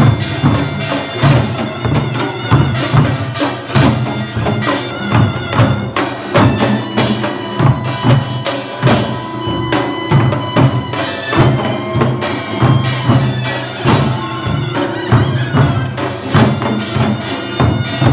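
Live Korean traditional folk music: handheld barrel drums (buk) struck on a steady beat, with a held wind-instrument melody above them.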